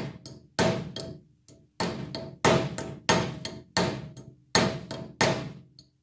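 Hammer peening down the rivets of a bicycle bell's inner gear on a wooden block: a steady run of sharp blows, about eight in all, with a faint metallic ring after each. The rivets are being tightened because the gear spins when it should stay fixed.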